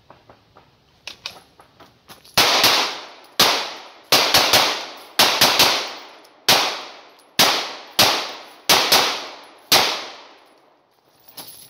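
After a few faint clicks, a 9mm HK P30L pistol fires a rapid string of about fifteen shots in pairs and threes, each trailing off in a long echo.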